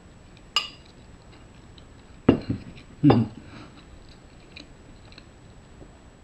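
Someone eating a mouthful of hot fried rice from a bowl. The utensil clinks once on the bowl, there is quiet chewing, and two short, louder sounds come about two and three seconds in.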